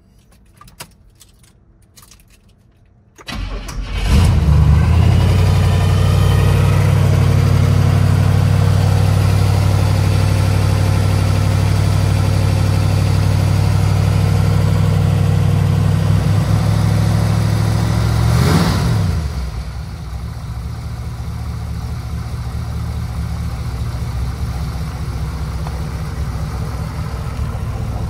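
Cold start of a 1969 Chevrolet Corvette's carbureted 350 cubic-inch small-block V8 breathing through Sanderson headers: it cranks briefly about three seconds in, catches, and runs at a loud, steady fast idle. About two-thirds of the way through the pitch briefly wavers, and the engine settles to a quieter idle.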